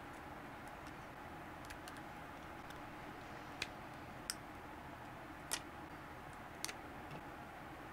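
Four short, sharp snips and clicks from scissors trimming the clear plastic wrapping around a bundle of lithium-ion battery cells, over a faint steady hiss.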